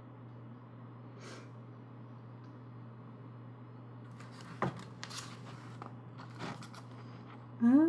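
Paper photobook pages being handled and turned: soft page rustles and one light tap over a steady low hum. Near the end comes a short, loud pitched call that rises in pitch and then holds.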